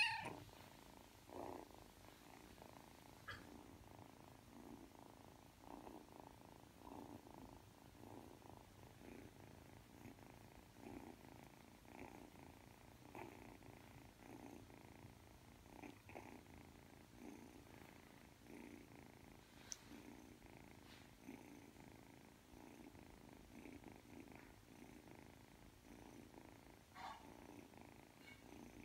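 A three-month-old Ragdoll kitten purring softly and steadily while being stroked, the purr swelling and fading with each breath about once a second. A brief louder sound comes right at the start, as the kitten opens its mouth.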